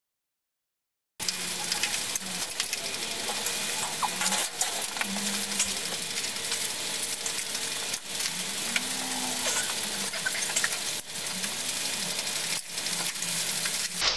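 Fast-forwarded sound of work on a motorcycle's rear wheel as a metal bar is fed through the wheel hub and spacers: a dense, crackling hiss with scattered sharp clicks, starting after about a second of silence.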